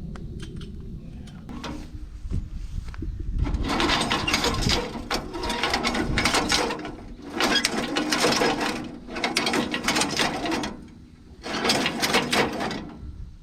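A mechanical ratcheting, grating sound worked in about five strokes of a second or so each, with short pauses between.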